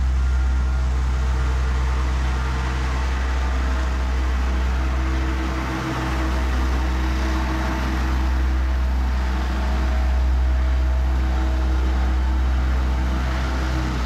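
Asphalt paver's diesel engine running steadily with a deep, continuous hum, along with the mechanical noise of the machine working as it lays fresh asphalt.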